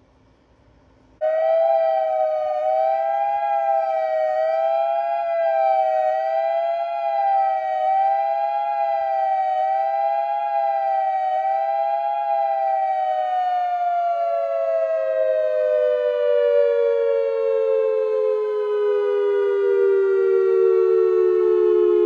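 Whelen WPS-2740 dual-tone electronic outdoor warning siren sounding the attack signal. It starts abruptly at full pitch about a second in, with two close tones wavering up and down about once a second. About halfway through, the pitch begins sliding steadily downward while the sound stays loud. This is an extra activation after the monthly test had ended, which the uploader counts as a malfunction.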